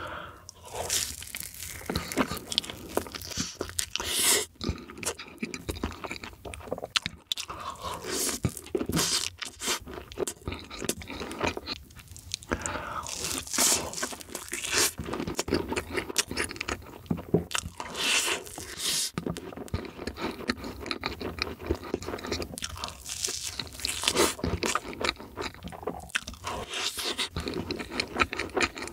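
Close-miked eating: biting into and chewing big mouthfuls of soft matcha crepe cake, with many sharp wet mouth clicks.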